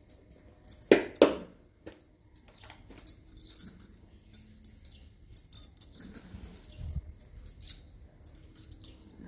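Glass bangles clinking and jingling against one another as they are handled, in scattered light clicks, with two louder knocks about a second in.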